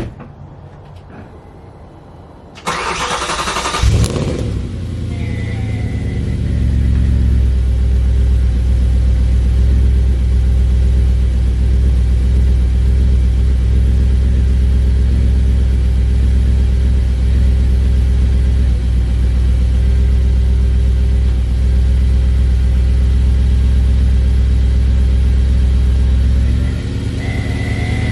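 Car engine cold-started at about −4 °C with its secondary air injection disabled: the starter cranks briefly about two and a half seconds in, the engine catches and settles into a steady high cold idle that drops a little near the end. A faint high whine comes in just after the start and again near the end, the cold-weather whine being traced.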